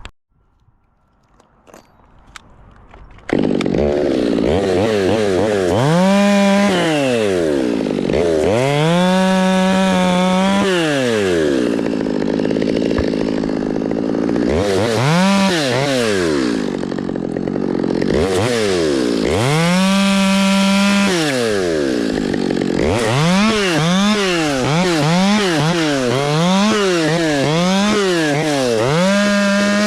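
Chainsaw engine starting up about three seconds in, after near silence, then revved to full throttle and dropped back to idle several times, and blipped quickly up and down a number of times near the end.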